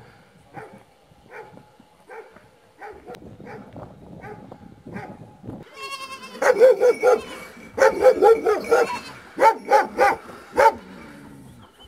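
Sage Ashayeri shepherd dog barking. Faint barks repeat about once a second at first, then about halfway through it breaks into loud barks in quick clusters of three to five.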